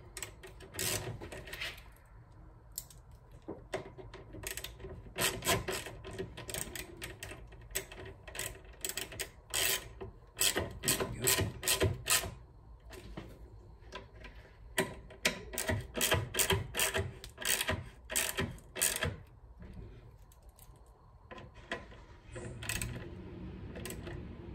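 Hand ratchet clicking in several short runs, with pauses between them, as fasteners going into plastic are tightened.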